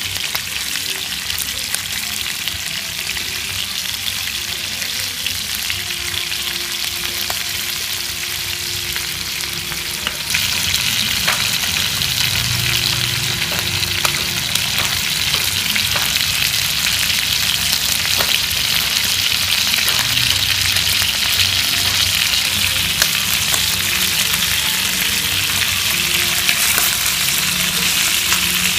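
Pieces of marinated field-rat meat frying in shallow oil in a nonstick pan: a steady sizzle that gets louder about a third of the way through. Occasional light clicks come from wooden chopsticks turning the meat against the pan.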